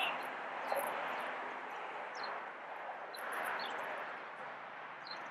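Steady outdoor background noise with a few short, high, falling bird chirps scattered through it.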